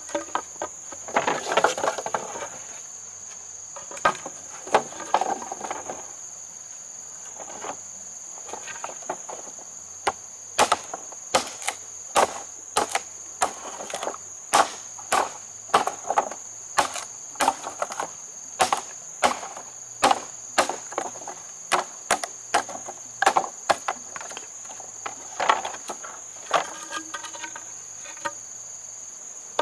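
Steady high-pitched insect drone, with a run of sharp knocks at about two a second starting about a third of the way in and going on to near the end.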